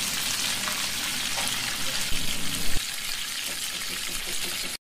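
Hot oil sizzling around a whole fried fish in a cast-iron platter as sauce is ladled on, a steady hiss that cuts off abruptly near the end.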